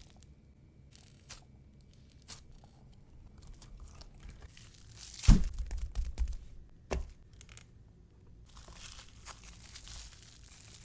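Bead-filled crunchy squishy being squeezed and handled: crinkling, sandy, slushy crunching with scattered small crackles. There are two louder thumps, about five and seven seconds in.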